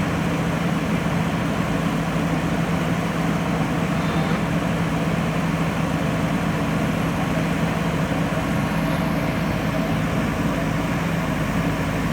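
Diesel engine of a JCB backhoe loader running steadily, with an even low hum and no revving.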